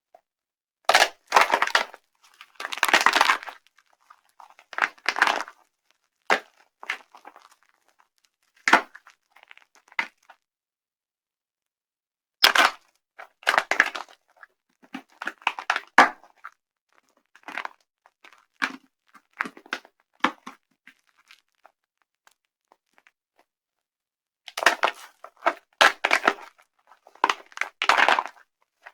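Dry soap being crushed and broken apart, crunching and crackling in short irregular bursts with silent pauses between them.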